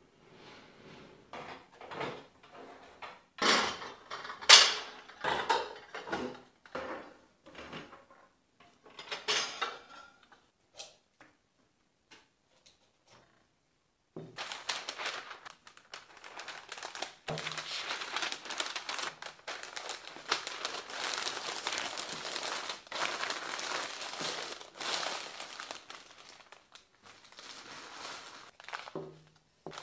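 Thin sheets of packing paper rustling and crinkling as they are spread out and handled for wrapping, a dense crinkle for more than ten seconds through the second half. In the first ten seconds there is a scatter of sharp knocks and clatters.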